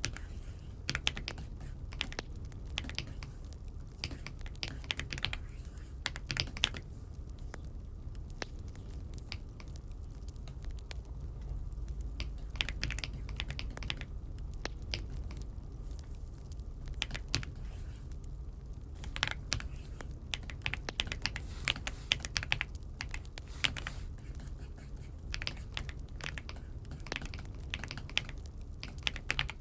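Typing on an Aula F75 mechanical keyboard: irregular keystroke clacks, now sparse, now in quick runs, busier past the middle, over a low steady hum.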